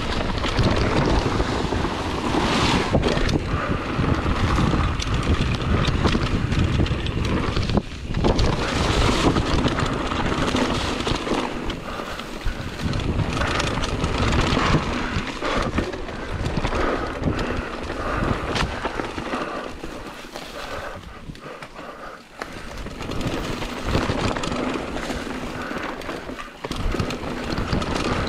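Wind rushing over an action camera's microphone as a downhill mountain bike descends a dirt trail, with the tyres rolling over dirt and gravel and the bike rattling and knocking over bumps. The noise eases for a couple of seconds about two-thirds of the way through.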